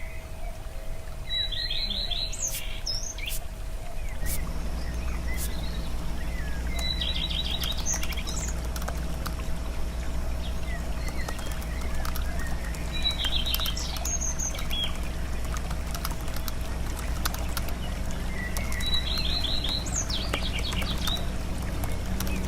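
A bird calling a short, high trill of rapid notes about every six seconds, four times in all, over a steady low rumble and a faint steady hum, with scattered faint clicks.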